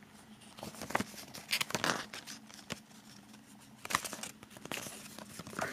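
Paper rustling and crinkling as a CD booklet is handled and its pages turned, with a few short clicks.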